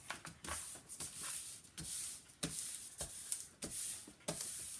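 Rustling and crinkling of a diamond painting canvas's plastic cover film and backing as it is smoothed flat by hand, in short irregular bursts with small clicks.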